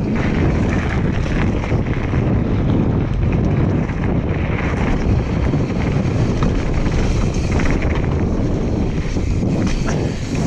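Wind rushing over the microphone, loud and steady, on a mountain bike moving down a trail, with scattered small knocks and rattles.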